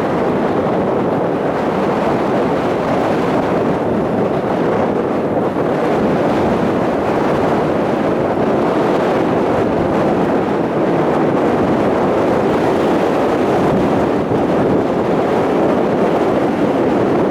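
Strong, gusty wind blowing across the microphone: a loud, steady rushing noise.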